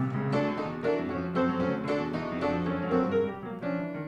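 Instrumental background music led by piano, a steady run of quickly struck notes over low sustained tones.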